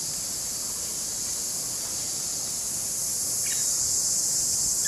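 A chorus of cicadas: a steady, high-pitched drone with no breaks, growing a little louder after about three seconds.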